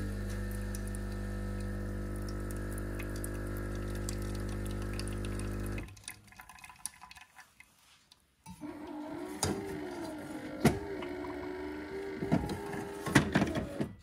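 Miele CVA 620 built-in coffee machine brewing: its pump hums steadily for about six seconds as coffee runs from the twin spouts into a steel jug, then stops, leaving a few faint drips. About two and a half seconds later a second, wavering machine hum starts, with sharp clicks and knocks over it.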